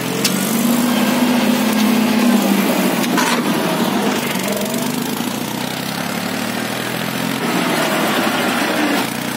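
HMT tractor's diesel engine running steadily under way, heard up close from the tractor itself.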